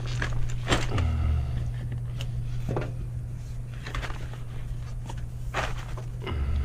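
A few scattered knocks and clatters of equipment being handled, over a steady low hum.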